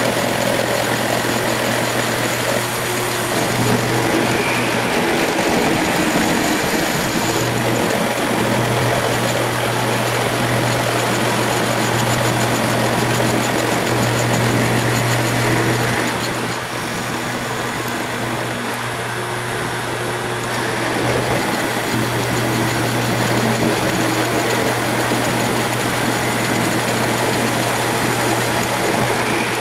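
Milling machine face-milling a 6061 aluminum plate with a face mill under cutting fluid: the belt-driven spindle and motor run steadily with continuous cutting noise on a light cut. The sound drops a little quieter about halfway through.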